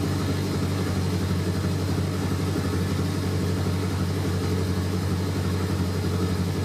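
Highly modified 2.1-litre VW ABA 16-valve four-cylinder with a radical cam, fast-idling steadily at about 1400 rpm while still cold, its Holley EFI holding a raised warm-up idle.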